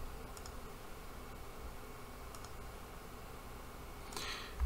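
Quiet room tone with a few faint, scattered clicks from a computer keyboard and mouse while logging in, and a short soft rush of noise near the end.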